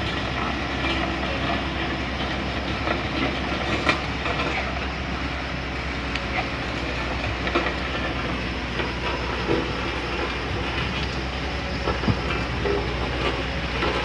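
Diesel engines of a road roller and an excavator running steadily, a low rumble with scattered clanks and knocks over it.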